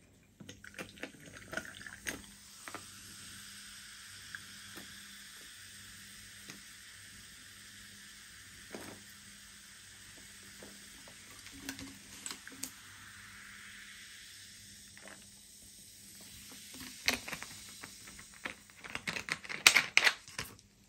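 Ginger ale poured from a bottle into a tall glass of ice: a steady fizzing pour with scattered clicks of ice cracking, lasting about fifteen seconds. A few sharp knocks and clatters follow near the end.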